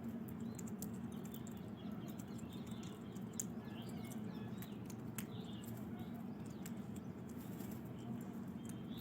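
Small birds chirping in short, scattered high calls over a steady low hum, with a few sharp clicks.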